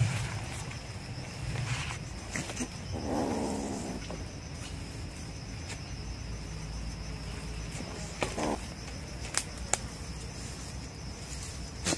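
A ferret-badger caught in a snare calls out twice: a pitched call lasting about a second, about three seconds in, and a shorter one a little after eight seconds. Scattered sharp snaps of dry twigs and leaves underfoot come between the calls.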